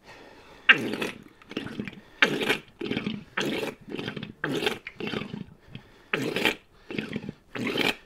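Motorcycle inverted front fork being pumped up and down by hand to drive out the last fork oil, each stroke squirting oil and air out of the drained fork. The strokes come in a steady rhythm, about two a second, a dozen or so in all.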